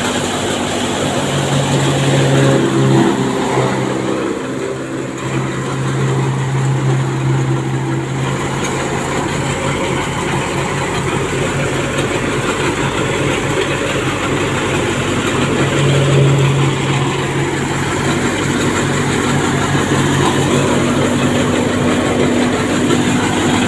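Tractor-driven multicrop thresher running at working speed: a loud, steady mechanical din with a low engine hum beneath it that grows stronger twice for a few seconds.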